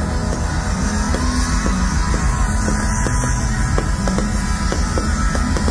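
Live rock band music played loud through a concert sound system, with a steady drum beat.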